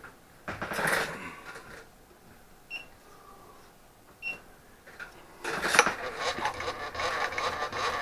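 Workshop handling noise and two small metallic pings, then about five and a half seconds in a machine tool's motor starts and keeps running with a steady hum.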